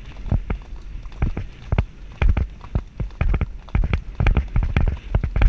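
Hoofbeats of a ridden horse on a dirt woodland track: a quick, uneven run of knocks, about three or four a second, each with a low thud.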